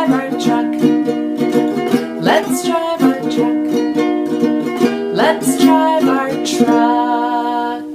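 Acoustic string instrument strummed in a steady rhythm, closing a children's song and ending on a held chord that cuts off near the end.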